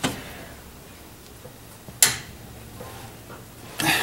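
A wrench angle-torquing a cylinder head bolt on a small-block V8: mostly quiet, with one sharp click about two seconds in and a louder rasping, clicking noise near the end.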